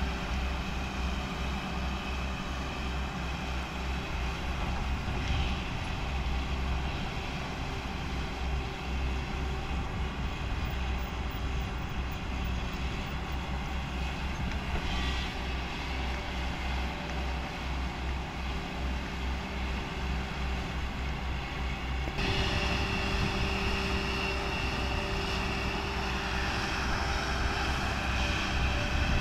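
Hyundai crawler excavator's diesel engine running steadily with a deep, pulsing rumble as the machine works soil, with hydraulic and digging noise on top. About three-quarters of the way through it gets louder and brighter.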